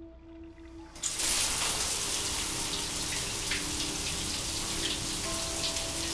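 Overhead shower head suddenly turning on about a second in, then spraying water in a steady hiss, over a low sustained musical drone.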